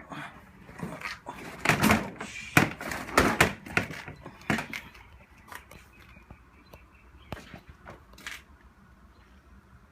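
Clicks and knocks of a new motorcycle exhaust clamp and its rubber gasket being handled and worked on, a quick run of them in the first half, then only a few faint ticks.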